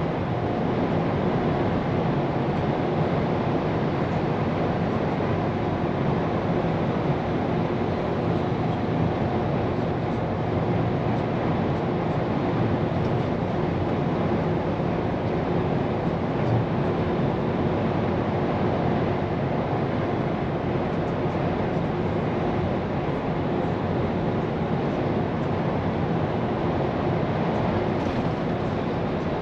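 Scania P410 truck driven at a steady speed, heard from inside the cab: an even engine drone under constant road and tyre noise.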